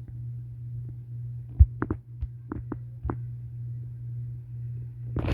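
A steady low electrical-sounding hum, with a handful of short knocks or clicks in the middle and one more near the end.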